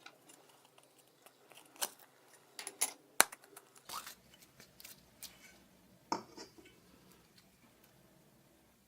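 Slime and makeup being handled by hand: scattered sharp clicks, taps and short scraping and squelching sounds, the loudest a single sharp click a little over three seconds in.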